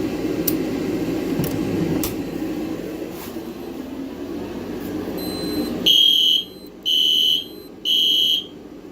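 Steady hum of the shed's heater with a few faint clicks, then about six seconds in, fire alarm horns sound three loud, high blasts in the temporal-3 evacuation pattern: the system has gone into alarm after a pull station was activated.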